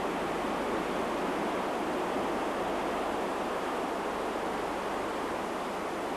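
Steady, even rushing of sea water, with no breaks or separate wave crashes.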